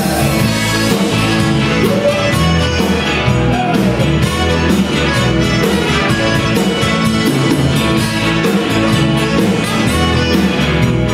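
Live band playing an upbeat Tex-Mex rock song: electric guitar, accordion, keyboard and a steady drum beat, with a man singing.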